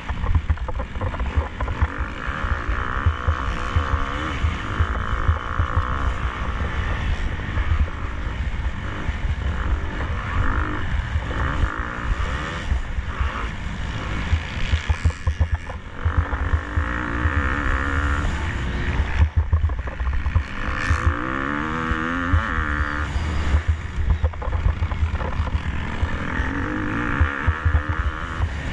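KTM 250 SX-F four-stroke single-cylinder motocross engine racing hard, its pitch rising and falling again and again as the throttle is opened and closed.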